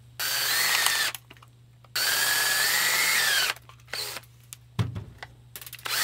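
Cordless drill running in several bursts of about one to one and a half seconds, with one very short blip, its motor whine rising slightly in pitch as it works, and small clicks of handling between bursts, while a light-dimmer switch is being taken apart.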